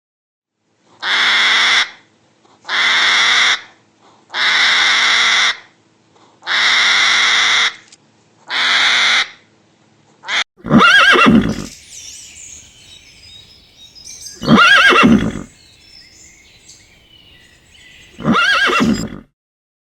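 Farm animal sounds: five breathy, noisy calls of about a second each, then three louder pitched calls with a wavering pitch.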